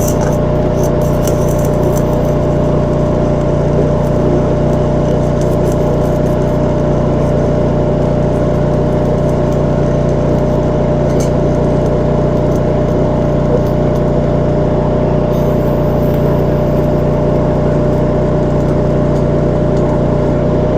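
Engine-driven welding generator running steadily at a constant speed, a continuous hum over a rough mechanical noise.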